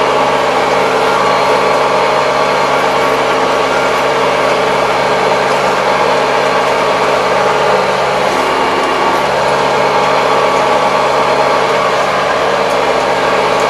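Kubota 75 hp tractor's diesel engine running steadily, heard from inside the closed cab.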